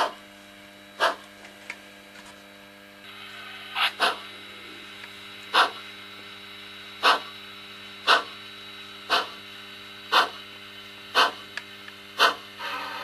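Sound-equipped HO scale Pennsylvania Railroad 0-6-0 steam switcher, its Tsunami digital sound decoder playing slow, evenly spaced exhaust chuffs about once a second over a steady electrical hum. A steady hiss joins about three seconds in.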